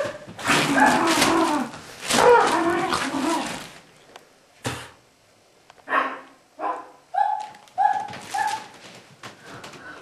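Dog growling and snarling for a few seconds, then a single knock and a run of about five short, high whimpering yelps.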